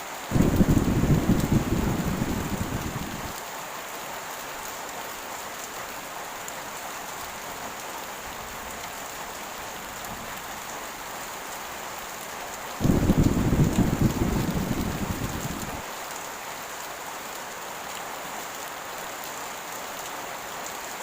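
Heavy rain falling steadily, with two deep rolls of thunder, one right at the start and one about 13 seconds in, each starting suddenly and lasting about three seconds.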